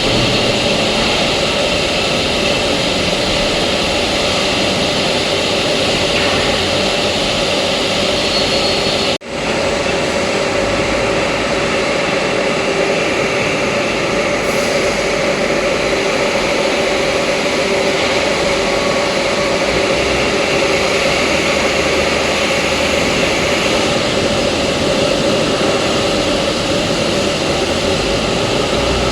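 Steady mechanical drone of a running hydraulic press plant, with the hum of its hydraulic pump and motors. It breaks off for an instant about nine seconds in.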